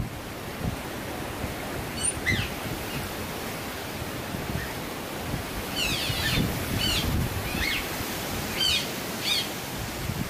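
Otters chirping, restless just before feeding: short, high squeaks sliding downward, a couple about two seconds in and a quick run of them from about six to nine seconds in, over a steady rushing background noise.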